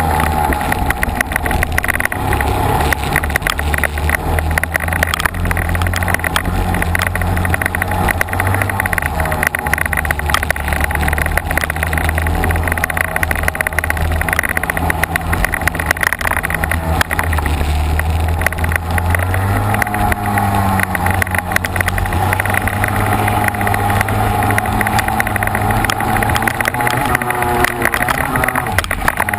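Onboard sound of a racing kart's engine running hard, its pitch shifting as it speeds up and slows around the course, with wind buffeting the camera microphone.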